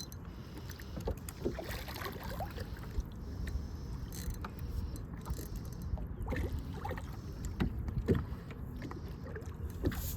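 Steady low rumble of a small fishing boat on the water, with scattered light knocks and clicks.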